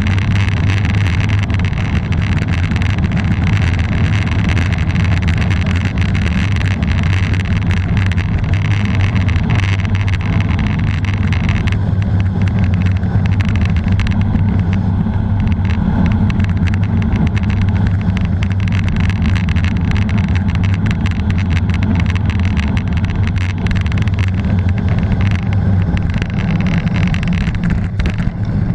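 Wind buffeting the microphone of a camera on a road bike descending at 45–65 km/h: a loud, steady rush, with tyre rumble on the asphalt and frequent small knocks.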